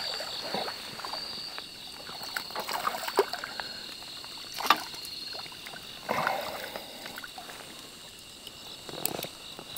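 Water splashing and sloshing a handful of times, typical of a small crucian carp being played and lifted out of the water, with one sharp click near the middle. Crickets chirp steadily throughout.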